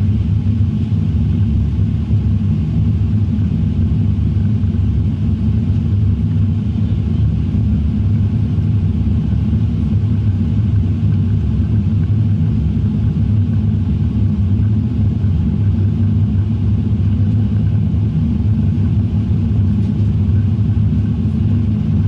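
Cabin noise of a Boeing 787-9 airliner: a loud, steady, low rumble that does not change.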